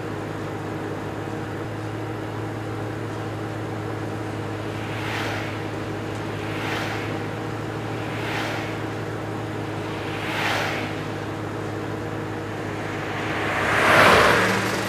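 Steady drone of a car travelling at highway speed, heard from inside the cabin, with short whooshes of other vehicles going past about 5, 7, 8.5 and 10.5 seconds in. A louder whoosh swells and fades near the end.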